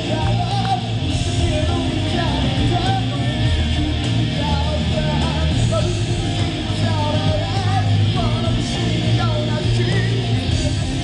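Electric guitar played live in a heavy rock style, with pitched notes that bend and slide over a heavy, steady bass.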